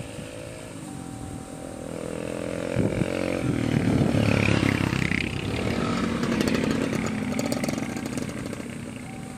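A motorcycle rides past close by, its engine note rising as it approaches and loudest about four seconds in, then fading. Behind it a level-crossing warning signal sounds in short repeated tones.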